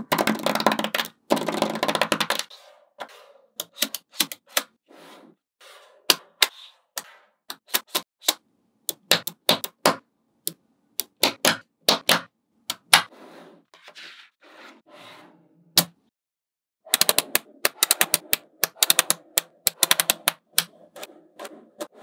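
Small magnetic balls clicking and snapping against each other as panels of them are folded and pressed together by hand: dense rattling clicks in the first couple of seconds and again in the last few seconds, with single sharp clicks in between.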